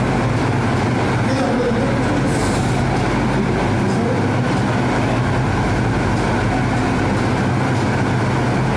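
Loud, steady din of a crowd's voices at a live event, with no breaks.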